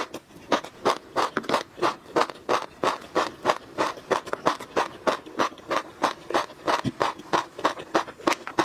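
Close-miked chewing of crunchy tobiko (flying fish roe): an even run of short crackling crunches as the eggs pop between the teeth, about three to four chews a second.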